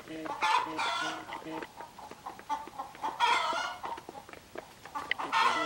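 A small flock of chickens clucking as they feed, with three louder calls spaced about two and a half seconds apart. Quick sharp taps run through it as beaks peck grain off concrete.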